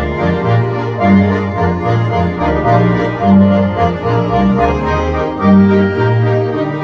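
Three Schwyzerörgeli (Swiss diatonic button accordions) and a double bass playing a Ländler dance tune, the accordions' reedy chords over a steady bass line.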